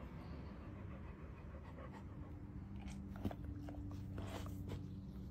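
Faint rustling of a towel and a few soft clicks as a possum wrapped in the towel is pulled off a dog's chest fur, over a low steady hum.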